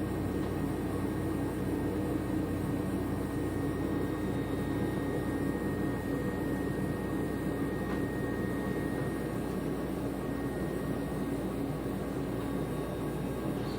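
A machine running with a steady drone and a faint high whine that fades out about nine seconds in.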